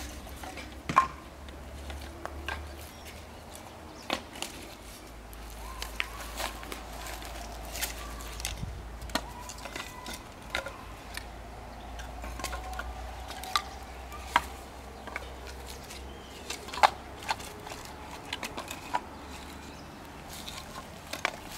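Split firewood pieces knocking and clacking against each other and against the metal stand as they are laid by hand into a fire pit. The knocks come irregularly throughout, and a few are much louder than the rest.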